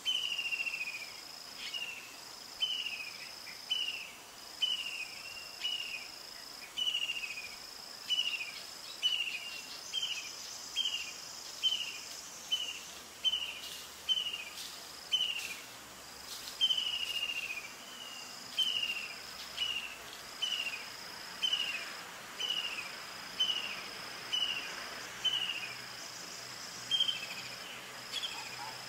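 Insects calling outdoors: a high, steady buzz that comes in stretches of about a second and a half, over short falling chirps repeated about once a second.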